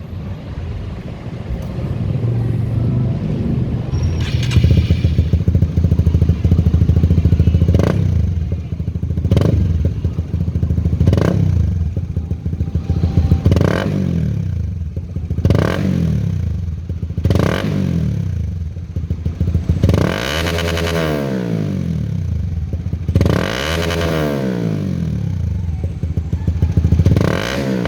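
Honda CBR150R single-cylinder engine through a Yoshimura R77 full-system exhaust. It idles at first, then gets a string of quick throttle blips about two seconds apart, and finally a few longer revs that climb and fall back.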